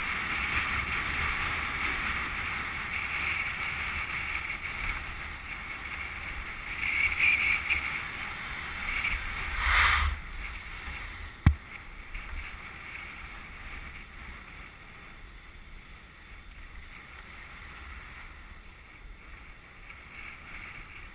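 Skis sliding on packed snow, a steady hiss, with wind rumbling on the microphone. It swells twice in the first half, then grows quieter. A single sharp click comes about halfway through.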